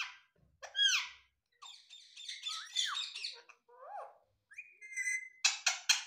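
Alexandrine parakeet whistling and chattering: loud arching whistles, a fast run of chirps in the middle, a held whistle, then a few harsh squawks near the end.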